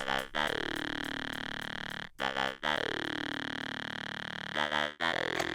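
Electronic synthesized tone with a fast, even pulsing. It comes in three long stretches, each opening with a brief warble, separated by short breaks.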